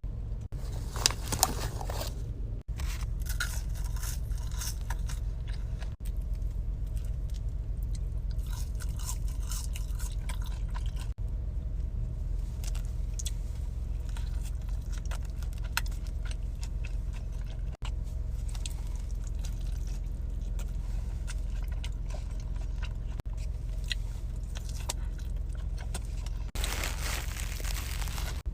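Close-up chewing and crunching of McDonald's fast food, with crisp crackling bites scattered through, over a steady low hum. Near the end there is a denser burst of hissing noise lasting about two seconds.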